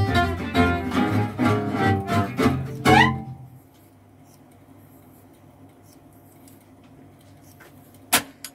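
A band's song ends in a final rising slide about three seconds in, leaving a faint steady hiss. Near the end comes one sharp click as a control on the Ferrograph 420 reel-to-reel tape recorder is switched.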